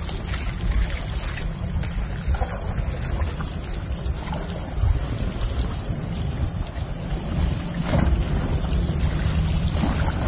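Insects trilling steadily, a high-pitched, finely pulsing drone, over wind rumbling on the microphone.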